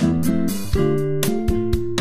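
Background music: plucked guitar over a steady beat.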